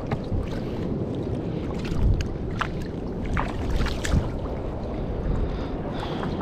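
Wind buffeting the microphone over the wash of surf on a beach. A few sharp clicks and rustles come around the middle.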